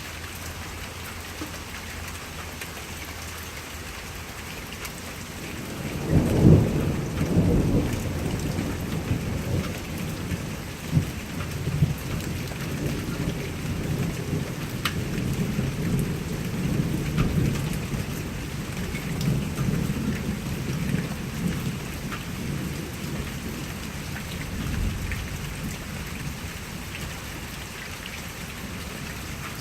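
Steady rain falling, with a clap of thunder about six seconds in that rolls on as a long low rumble, slowly fading over some twenty seconds.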